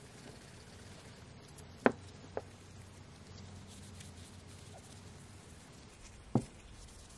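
Hand-polishing a steel punch with a cloth: quiet handling and rubbing, with three sharp clicks of the metal, two close together about two seconds in and one near the end.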